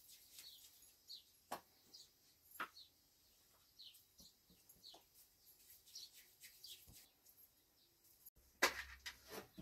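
Faint, short, high bird chirps, each falling slightly in pitch, repeated every half second to a second. A few soft taps come in between, and near the end there is a brief cluster of louder knocks and rustling.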